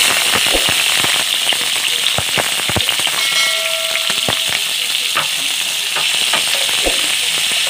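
Sliced onions sizzling loudly in hot oil in a nonstick kadhai, just added to the pan. The clicks and scrapes of a wooden spatula stirring them run through the sizzle.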